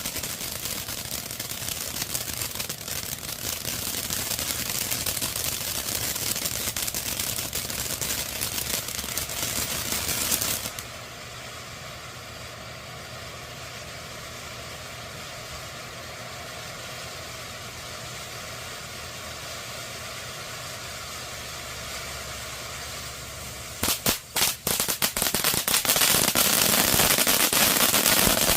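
Monkey Mania 3-minute firework fountain burning: a loud steady hiss of spraying sparks drops to a quieter hiss about ten seconds in. About twenty-four seconds in it breaks into loud, dense crackling.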